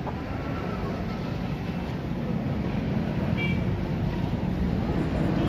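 Steady low background rumble, with a brief faint high chirp about three and a half seconds in.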